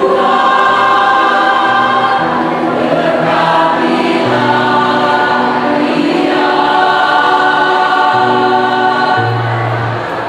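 Mixed choir of men and women singing in parts, holding long sustained chords that change every second or two, easing slightly in volume near the end.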